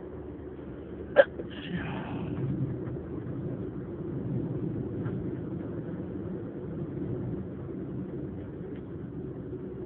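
A person's stifled sneeze: one short, sharp, held-back burst about a second in, followed by a breathy rush of air.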